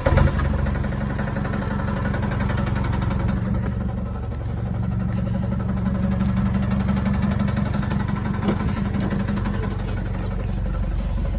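Holden Colorado ute's engine catching right at the start and then running at a steady idle.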